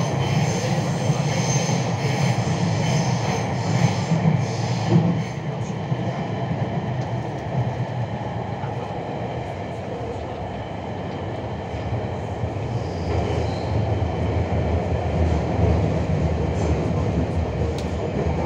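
Beijing Subway train running, heard from inside the carriage: a steady low rumble of wheels and traction motors with rattling. It is busier and louder for about the first five seconds, then settles to a smoother drone.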